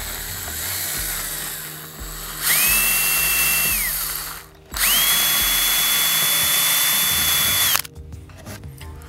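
Stanley FatMax cordless drill pre-drilling nail holes through pine tongue-and-groove siding. A softer first run is followed by two loud runs with a whine: the first lasts about a second and a half and winds down at its end. The second, higher and steady, lasts about three seconds and cuts off suddenly.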